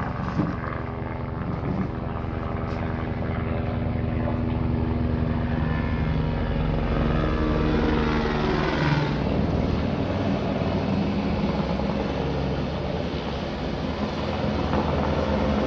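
Helicopter flying close by, a steady rotor and engine drone whose pitch shifts about halfway through as it moves past.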